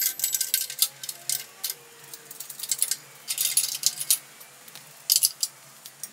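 Metal hand tools and steel parts clinking and rattling in irregular spells of sharp clicks, as hands work at a vehicle chassis.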